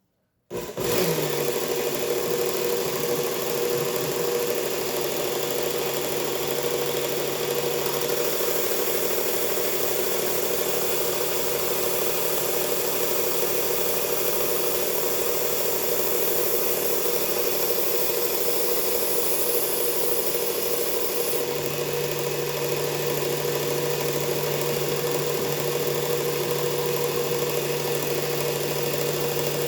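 Motorised belt sharpener with a medium-grit belt starting up about half a second in and running steadily while a knife edge is sharpened on it. Its low hum changes around a quarter of the way through and again about two-thirds through.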